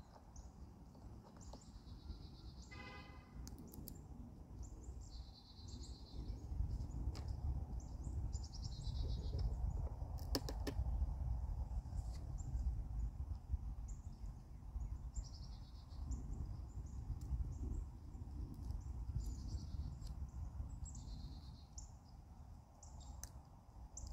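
Small birds chirping in short repeated calls, about every few seconds, over a low outdoor rumble that swells through the middle, with a few faint clicks.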